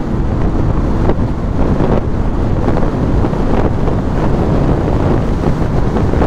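Steady wind buffeting on the microphone over the low rumble of a vehicle moving along the road.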